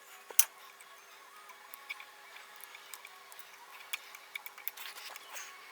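Small metallic clicks and taps from handling motorcycle brake caliper parts, a slider pin, spacer and rubber boot, with one sharp click about half a second in and lighter scattered ticks after.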